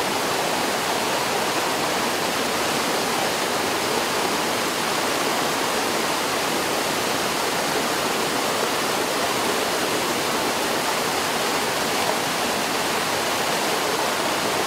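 Muddy flash-flood water rushing and churning down a street, a steady, loud rush of water that doesn't let up.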